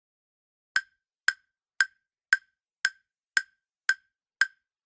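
Quiz countdown-timer sound effect: short, sharp ticks, evenly spaced at about two a second, starting nearly a second in.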